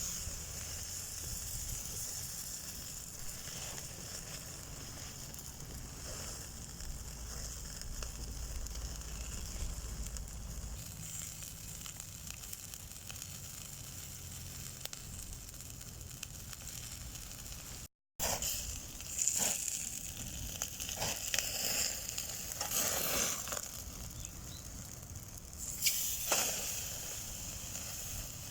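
Food sizzling on a grill over a bamboo-charcoal fire, with crackling from the coals. In the second half there are several louder bursts of sizzling.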